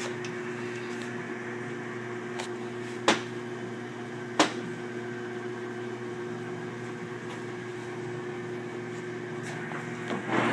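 Sidney 16-inch lathe running with a steady hum of several fixed tones from its motor and gearing, between cuts. There are two sharp clicks about a second apart, near the middle.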